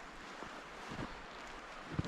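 Footsteps in snow, about three soft steps, over a steady hiss of wind.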